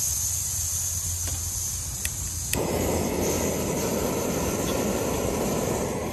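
Gas hissing from an ultralight canister camp stove's open valve, a few clicks of a lighter, then the burner lights about two and a half seconds in and burns with a steady rushing noise.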